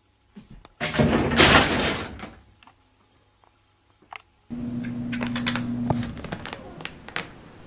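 A loud bang and rattle of a wooden door about a second in, lasting over a second. Later, a low steady hum with light scattered clicks.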